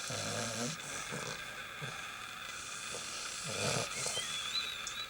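Bulldog puppy snoring in its sleep: rasping snores at irregular intervals, the loudest about three and a half seconds in. A faint high wavering whistle comes near the end.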